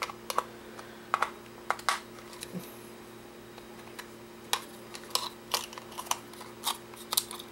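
Irregular light clicks and taps of a small plastic camera housing being handled and pried apart, about a dozen over several seconds, over a faint steady hum.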